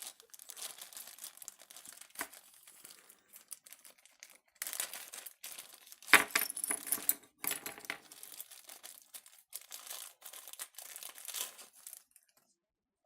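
Plastic packaging crinkling and tearing as it is handled, mixed with small hard clicks and clinks. It stops about a second before the end.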